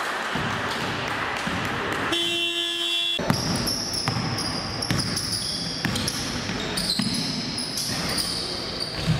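Basketball dribbling on a hardwood gym floor and sneakers squeaking, echoing in a large sports hall. A one-second horn-like tone sounds about two seconds in.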